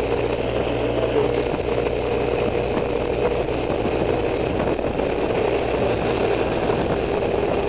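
Honda Silver Wing's engine running steadily while riding at a constant speed, mixed with wind and road noise.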